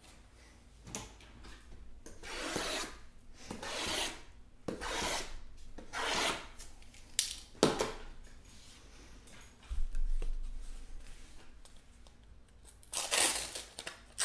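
Shrink-wrapped cardboard hobby boxes being slid and rubbed against one another and the table. It is a series of rubbing swishes, each about half a second to a second long, with two sharp knocks in the middle and another swish near the end.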